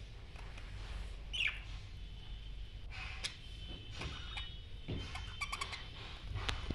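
Budgerigars chirping, a few short high chirps, with some light clicks.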